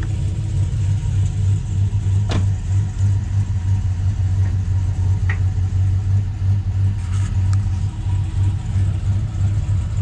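Chevrolet Silverado pickup engine idling with a steady low drone, with one sharp knock about two seconds in.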